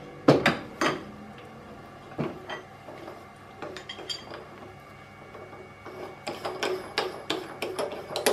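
Steel tooling clinking and knocking as a tap is changed over by hand on a milling machine: scattered sharp metallic clicks, a couple just after the start and a busier run near the end.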